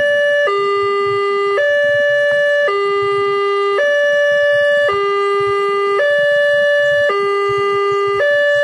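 Railway level-crossing warning alarm sounding: an electronic two-tone signal that alternates between a higher and a lower note about once a second, steady and unbroken. It signals that the crossing is active and a train is due.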